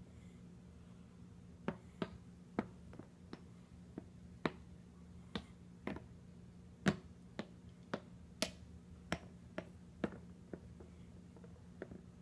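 Red wooden blocks clicking and tapping as they are set down on a board and knocked against one another. About twenty sharp, irregular clicks, a few louder than the rest.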